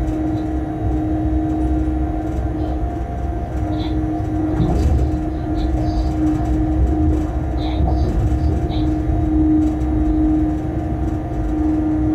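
Cab noise of a Bombardier Traxx class 186 electric locomotive running with a freight train: a steady low rumble of wheels on rail under a constant hum from the locomotive's equipment, with a few faint ticks.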